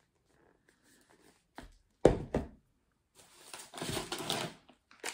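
Packaging being handled: a few sharp knocks about two seconds in as a cardboard tube is set down, then a plastic snack bag rustling.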